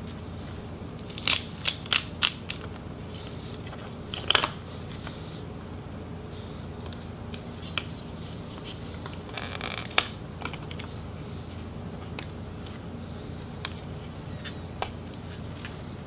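Sharp plastic clicks and light handling noise as a MacBook Pro's small cooling fan and its ribbon cable are worked loose by hand: four quick clicks, then another a couple of seconds later, and a short scratchy rustle ending in a click. A steady low hum runs underneath.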